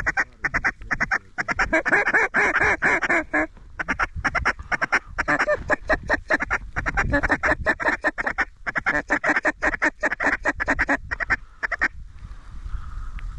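Hand-blown duck call giving loud, fast runs of mallard quacks, used to work approaching ducks into the decoys. There are short breaks about 3.5 s and 8.5 s in, and the calling stops about a second before the end.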